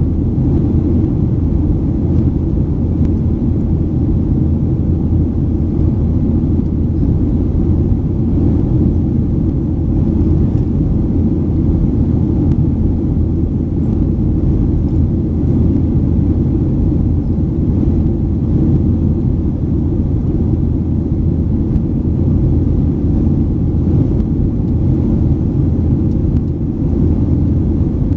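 Steady low rumble of a Boeing 737-800 in flight, its CFM56-7B engines and the rushing air heard from inside the passenger cabin.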